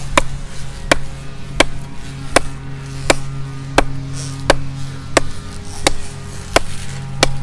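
Small 14-inch Pittsburgh hatchet with a composite handle chopping into a downed conifer trunk: about eleven even strokes, roughly one every two-thirds of a second, the blade biting in well. A steady low hum runs beneath.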